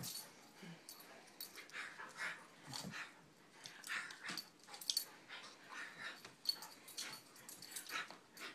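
A large dog making short, irregular breathy huffs and snuffles during rough play-wrestling.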